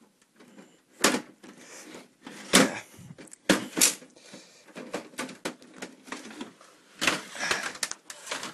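Side panel of an old Dell computer tower's case being unlatched and pulled off: a series of plastic and metal clacks, knocks and rattles, the loudest about one, two and a half, three and a half and seven seconds in.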